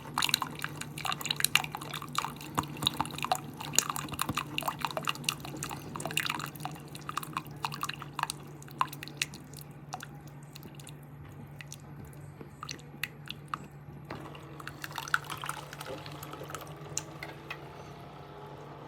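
Keurig K-Supreme Plus single-serve pod coffee maker brewing: coffee trickling and dripping into a mug over a steady low hum from the machine. The dripping is dense at first and thins out to scattered drops about halfway through.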